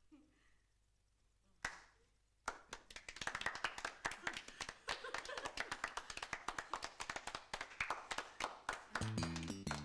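People applauding, many hand claps close together, starting suddenly about two and a half seconds in after a single clap. Music comes in near the end.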